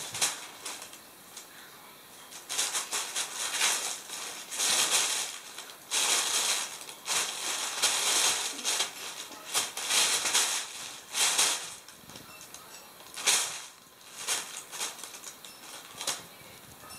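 Thin plastic bag crinkling and rustling in irregular bursts as a kitten crawls inside it and scrabbles on top of it, with short quieter pauses between bursts.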